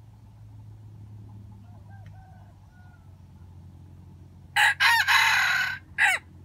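Junglefowl rooster crowing once, loud: a few clipped syllables running into a longer middle note, then a short separate final note, about a second and a half in all. Faint clucking comes a few seconds earlier.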